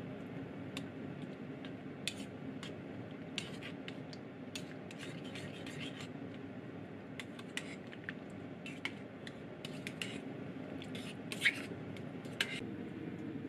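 A metal spoon and ladle scraping and clinking against the side of a stainless steel pot as miso paste is stirred into soup, with two sharper clinks near the end. A steady low hum runs underneath.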